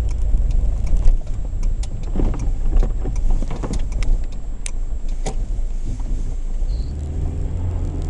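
Cabin sound of an Opel Kadett E Caravan rolling slowly over snow: low engine and road rumble with scattered sharp clicks and crackles, settling into a steadier engine hum near the end.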